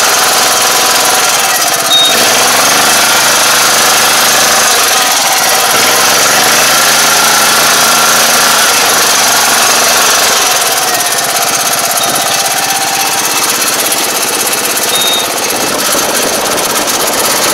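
2021 Iseki five-row rice transplanter running in a flooded paddy: a loud, steady mechanical clatter from the machine with its engine running underneath.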